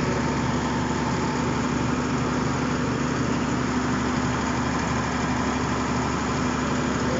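Bulldozer's diesel engine running steadily as the dozer moves across muddy ground.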